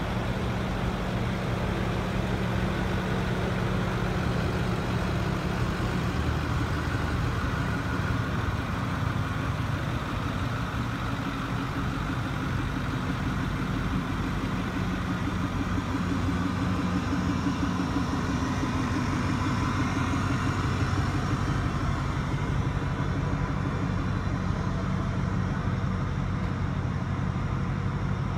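Ford F-550 Super Duty truck's engine idling steadily.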